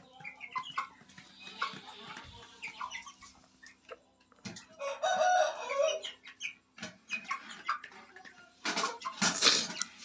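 Aseel chickens clucking softly while feeding, with one louder pitched call about five seconds in. Near the end comes a loud flurry of wing flapping.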